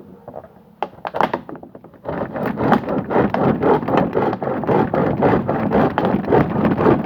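A few clicks and knocks from handling, then about two seconds in an electric fan starts up: a loud, steady rush of air with a fast, uneven flutter on the microphone.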